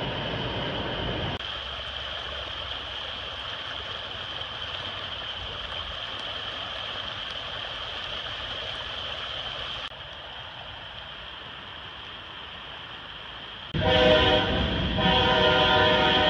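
Steady noise with a high steady tone, changing abruptly twice, then a loud chord-like horn sounding from about three-quarters of the way in.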